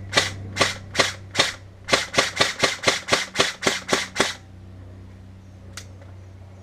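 Airsoft HK416 electric rifle (AEG) firing on semi-auto, about fourteen shots in quick succession. The shots quicken from about two a second to about four a second and stop abruptly a little past four seconds in, followed later by a single faint click.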